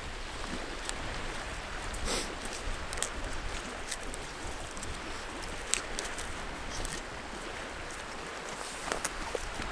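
Steady outdoor hiss of wind and lake water, with a few short, faint clicks and rustles from cord being wound around a stick.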